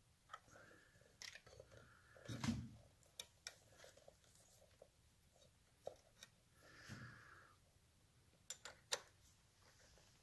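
Faint scattered clicks and ticks of wire terminals and a small wrench being handled on a motorcycle ignition coil's terminals, with a soft knock about two and a half seconds in.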